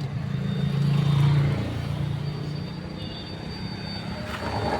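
A heavy vehicle's engine running with a low hum that swells about a second in, then eases back.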